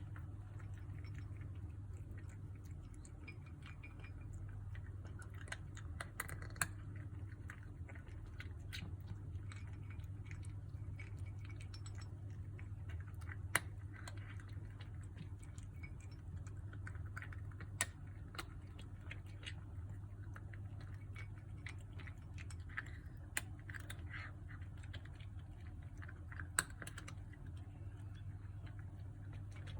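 A kitten eating, a long run of small, irregular crunches and clicks with a few sharper clicks, over a steady low hum.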